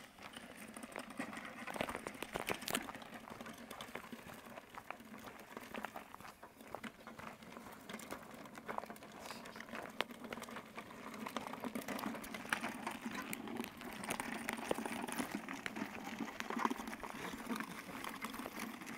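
Walk-behind lawnmower being pushed over a gravel road, its wheels rolling and crunching on the stones in a continuous irregular crackle, with footsteps on gravel.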